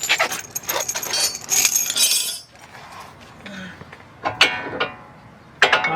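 Metal brake parts clinking and rattling as they are handled and fitted: pads and clips against the caliper bracket. The clinking is dense for about the first two seconds, then gives way to a few sharper clinks later.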